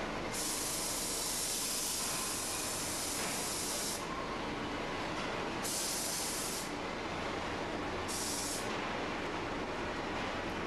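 Molten iron pouring from a ladle into a sand mould, heard as a steady rushing noise with a hiss on top: the hiss runs for about four seconds, then comes back twice more, briefly.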